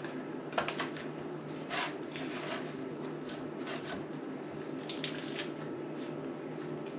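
Fingers pressing cookie dough into the cups of a metal muffin tin: soft squishes with scattered light clicks and taps against the pan, over a steady low hum.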